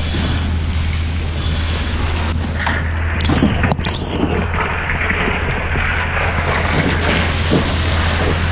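A steady low engine hum, typical of a fire engine's pump running, under a constant rushing hiss. A few sharp knocks come about two and a half to four seconds in.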